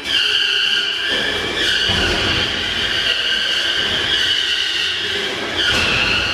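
Two heavyweight combat robots shoving against each other, their drivetrains giving a loud, steady high-pitched whine that steps in pitch twice, with low scuffing noise underneath as the wheels push and slip on the arena floor.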